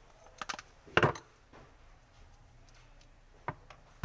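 A few short knocks and clicks: light clicks about half a second in, a loud sharp knock about a second in, and another knock near the end.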